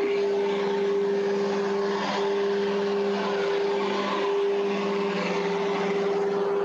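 Steady mechanical drone: a constant humming tone over a broad, even rush of noise, like a running engine or machinery.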